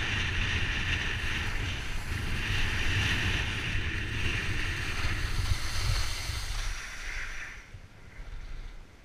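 Wind buffeting the camera's microphone, with skis hissing over packed snow, while skiing downhill. Both fade about seven seconds in.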